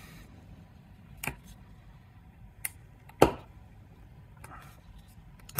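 Plastic end cap of a USB stick's aluminium sleeve being pried with a thin metal blade: a few sharp clicks and crunching cracks as the cap gives, the loudest a little past three seconds in.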